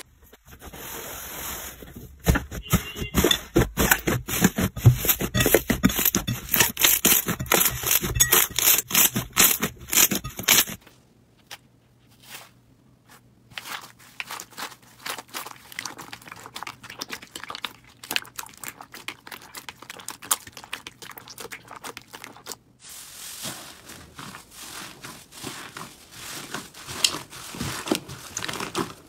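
Hands squeezing, pressing and pulling slime, giving rapid runs of sticky crackles and pops. The crackles are dense for the first third, sparser and quieter through the middle, and dense again near the end.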